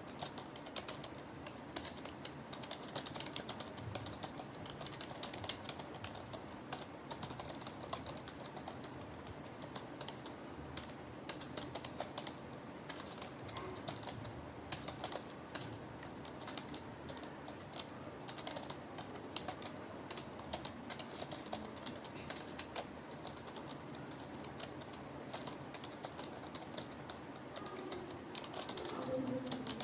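Computer keyboard keys clicking in a steady, irregular stream of keystrokes as someone touch-types continuously during a typing-speed test.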